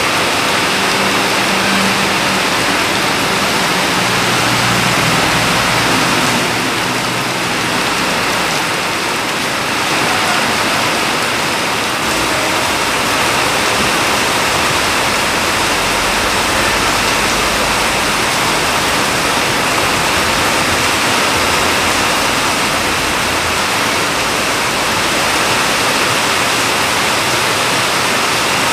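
Heavy rain pouring steadily: a dense, even hiss of rain on a road and roadside. In the first few seconds a lorry passes on the wet road with a low engine hum under the rain.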